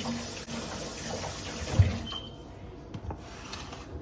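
Kitchen tap running steadily, then shut off about halfway through, with a sharp knock just before the water stops. Faint clicks of handling follow.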